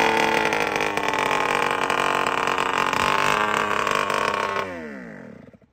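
Tuned MBK Booster two-stroke scooter engine idling steadily through a smashed, holed exhaust pipe, then cutting out and winding down to a stop over about a second near the end.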